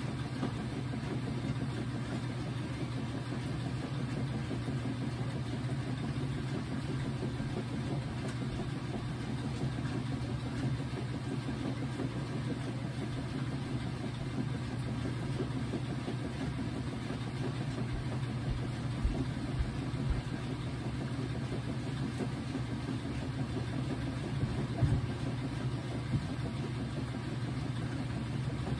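Whirlpool washing machine running through a wash load of towels, a steady low motor hum with a few short low thumps about two-thirds of the way through.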